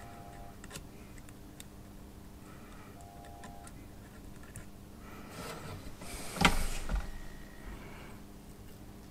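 Quiet workbench handling noise during soldering: a few faint ticks, then a rustle that ends in a sharp clack about six and a half seconds in, over a steady low hum.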